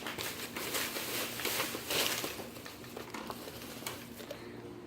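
Plastic crinkling and rustling in irregular bursts, busiest about halfway through, as a bag is handled.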